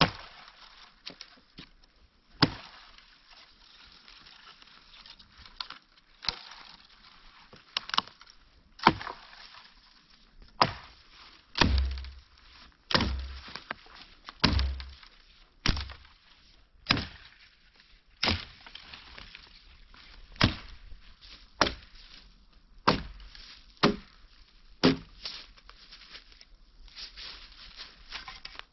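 Hatchet chopping the dead branches off a fallen tree trunk: a series of sharp strikes, about one every second or so, starting about two seconds in, loudest near the middle.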